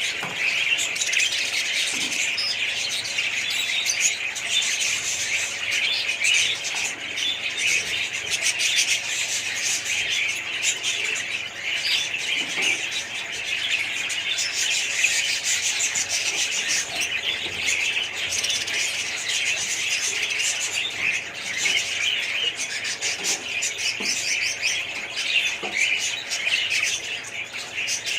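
A colony of budgerigars chattering and chirping all at once, a dense, continuous twittering with occasional sharper squawks.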